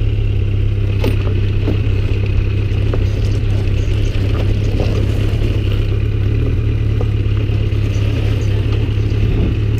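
Motorcycle engine running steadily at low revs, a low even hum, as the bike rolls slowly over gravel, with scattered small clicks.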